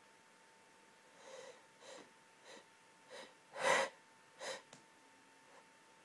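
A woman's short, breathy gasps and snorts in the build-up of a sneeze during a sneeze fit: six quick catching breaths a little over half a second apart, the fifth the loudest.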